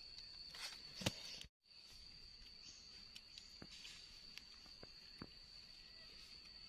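A faint, steady high-pitched insect drone. In the first second and a half there are a couple of sharp clicks and some leaf rustling as a knife cuts through a mushroom stem, and the sound drops out briefly at an edit.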